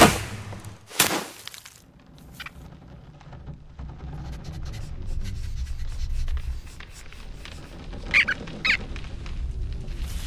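Cartoon sound effects with no music or speech: a sharp loud crack at the start and a second burst about a second later, then a low rumble that slowly builds, with two short high squeaks near the end.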